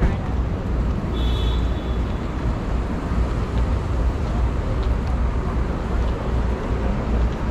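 Busy city street traffic noise: a steady, dense rumble of passing vehicles, with a brief high-pitched squeal a little over a second in.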